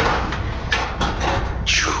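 Scrap metal being thrown and dragged out of a pickup truck bed: a run of clanks and knocks, with a metal scrape that falls sharply in pitch near the end.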